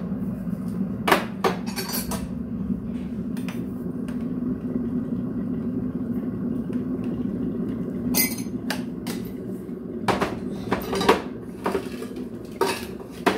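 Clinks and knocks from a coffee canister being opened and handled, and a spoon scooping coffee into a ceramic mug and tapping against it, in scattered bunches. Underneath is a steady low rumble from a glass electric kettle heating water.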